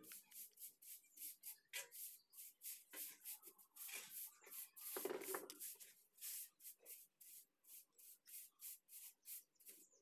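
Faint rustling and rubbing of hands handling small parts: quick irregular scratches, with a louder, fuller rub about five seconds in.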